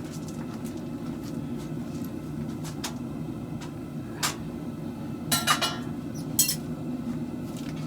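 Propane forge burner giving a steady low roar, with a few light metallic clinks of steel against steel: one about four seconds in, then a quick cluster and a sharper clink a second later.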